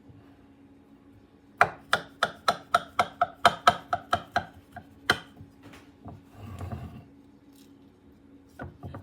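Sharp knife chopping down through stacked, buttered phyllo layers of unbaked baklava to the bottom of the baking pan: a quick run of about a dozen sharp taps, roughly four a second, then a single tap and a brief rustle.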